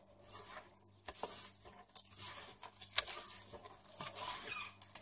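Hands working flour into a soft egg, sugar and oil cookie dough in a bowl: soft, uneven rustling and squishing with a few light clicks.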